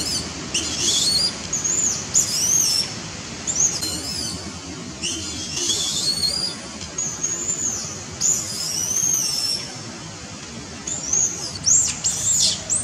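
Young long-tailed macaque screaming in repeated bouts of high-pitched squeals, each rising and then falling in pitch.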